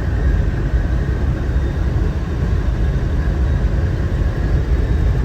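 Steady low rumble of a vehicle driving at road speed, heard from inside the cabin: tyre and engine noise.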